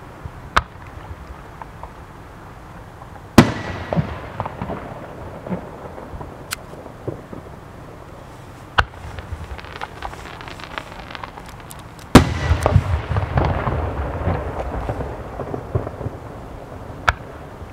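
Aerial firework shells bursting in the sky as a series of sharp bangs. The two loudest come about three and twelve seconds in, each followed by a few seconds of crackling and echo, with single lighter bangs between.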